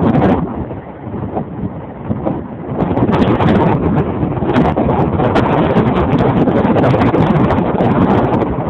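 Big storm waves crashing over a pier, with strong wind buffeting the microphone into a loud, rumbling roar. The roar drops for about two seconds near the start, then surges back.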